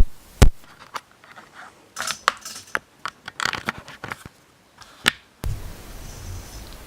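Microphone handling noise while switching mics: sharp plug clicks and knocks with scattered rustling, then a low hum comes in near the end as the new microphone is connected.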